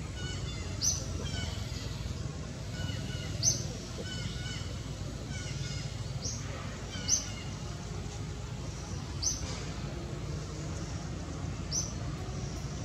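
Birds chirping: short high chirps every two to three seconds, mixed with quieter lower chirping calls, over a steady low background rumble.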